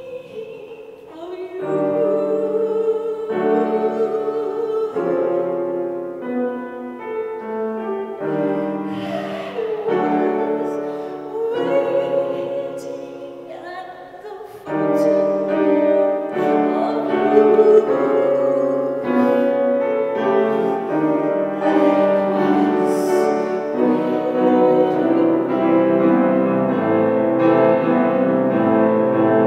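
A woman singing with her own grand piano accompaniment, holding long notes over piano chords. About halfway through the piano grows louder and fuller.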